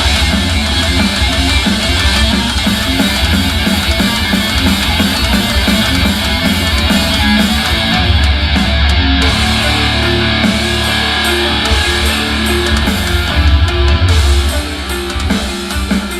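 Rock music with guitars, heavy-metal style, played loud through a TCL S642W 2.1 soundbar and its subwoofer, with strong bass. The music drops a little in level about a second and a half before the end.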